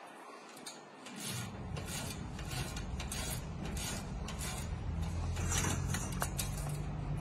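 A band saw blade sharpener's grinding wheel touching the teeth of a bandsaw blade in repeated short, light scrapes over the steady hum of its motor.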